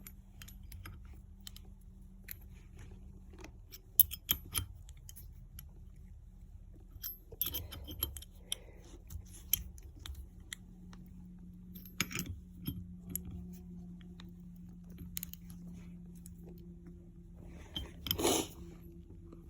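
Scattered light metallic clicks and clinks of hand tools and small parts being worked on a motorcycle clutch basket, with a louder rattle near the end, over a faint steady hum.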